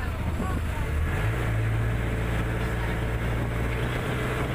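Boat engine running steadily, its pitch stepping up slightly about a second in.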